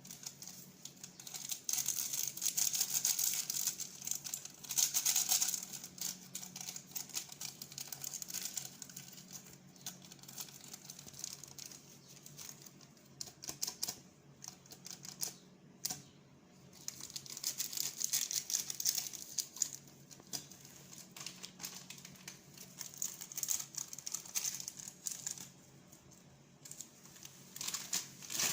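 Plastic packaging crinkling and rustling in bursts, with quick crackling ticks, as instant-noodle packets and seasoning sachets are handled and torn open.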